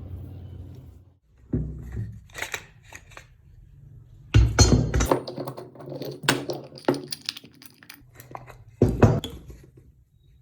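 A steady machine hum cuts off about a second in. After it come irregular knocks, clatters and scrapes of workshop handling, loudest about four to five seconds in and again near nine seconds.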